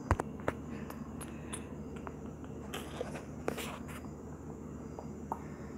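Handling noise from a handheld camera: scattered soft clicks and brief rustles over a steady low room hum.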